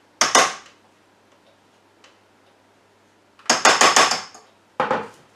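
A spatula scraping and knocking against the stainless-steel mixing bowl of a food processor as batter is scraped out, in short clattering bursts: one near the start, a longer cluster about three and a half seconds in, and another near the end.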